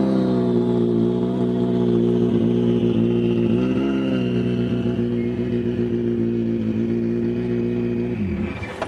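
Škoda Fabia WRC rally car's turbocharged four-cylinder engine running at a steady idle, with a small blip about four seconds in, then winding down as it is switched off near the end.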